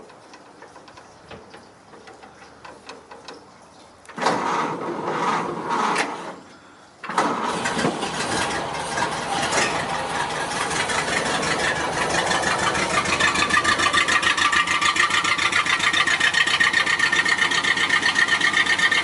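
Ford Model A four-cylinder engine being cranked by its starter for about three seconds, then catching about seven seconds in and settling into a fast, even idle as it warms up from a cold start.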